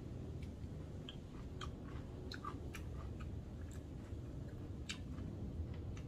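Close-miked mouth sounds of chewing a fried tofu pocket (yubu-chobap) topped with avocado and crab: irregular small clicks and smacks.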